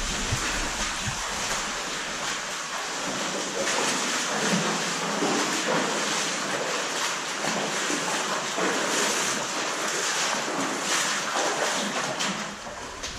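People wading through the shallow water of an underground cave river, a continuous sloshing and splashing of legs moving through the water. It eases off near the end as they step out of the water onto rock.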